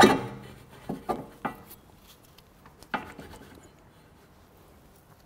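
Steel tools clanking in a workshop: a loud metallic clank that rings briefly, then a few lighter knocks over the next three seconds.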